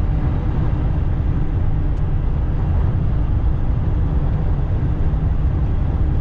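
Steady low rumble of a semi truck's engine and road noise, heard from inside the cab while driving.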